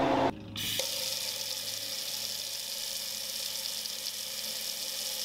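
A kitchen tap running, a steady stream of water splashing into a stainless steel sink. Just before it, a freeze dryer's steady hum cuts off abruptly right at the start.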